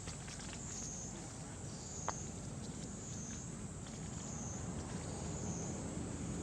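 Outdoor forest ambience: a high insect drone that swells and fades about once a second, over a low rumble, with scattered light ticks and one sharper click about two seconds in.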